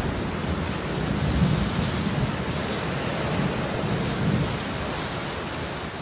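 Thunderstorm: steady rain with low rolling thunder that swells several times.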